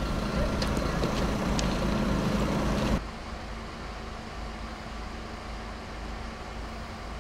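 Steady low drone of idling vehicle engines, with a few faint ticks. About three seconds in it drops abruptly to a quieter, similar hum.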